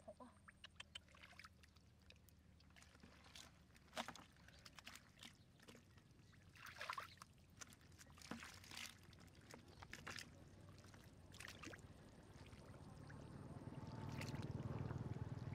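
Hands splashing and sloshing through shallow muddy water, in scattered short splashes, then a longer, louder sloshing near the end as both hands work through the mud.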